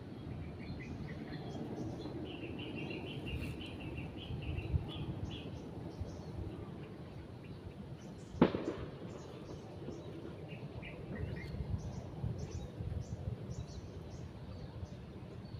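Birds chirping in short bursts over a steady low outdoor background, with one sharp knock a little past the middle.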